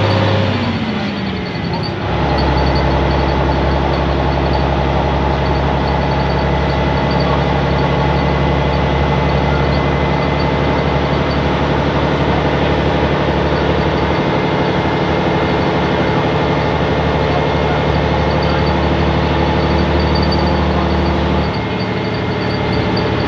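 Leyland National 2 bus's diesel engine heard from inside the saloon while the bus is under way. The engine note falls about a second in, settles into a steady drone from about two seconds, and drops again near the end.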